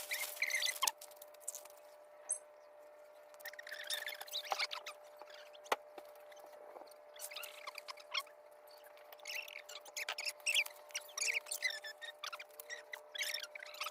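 Scattered high-pitched chirps and squeaks, coming in clusters, over a faint steady hum, with a single sharp click about midway.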